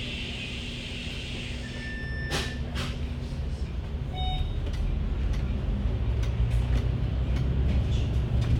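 Bus engine drone heard from inside the bus, growing louder from about five seconds in as it pulls harder. Early on there is a high beep over a hiss of air, ended by a sharp knock a little over two seconds in, and a brief chime sounds just after four seconds.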